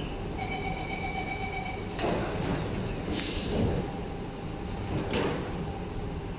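Singapore MRT train standing at a station platform with its sliding doors working. A steady tone sounds for about a second and a half, then air hisses briefly about three seconds in, and a knock comes about five seconds in.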